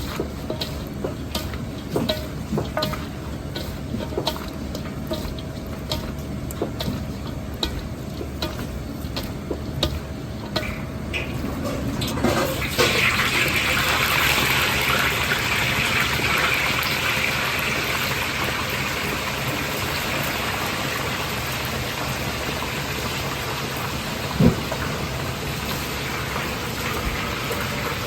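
Kitchen clatter of scattered light knocks, then about twelve seconds in a tap starts running water in a steady gush that carries on, with one sharp knock near the end.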